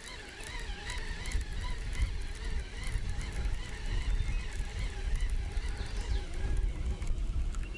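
Wind buffeting the microphone as a steady low rumble, with faint wavering bird calls behind it.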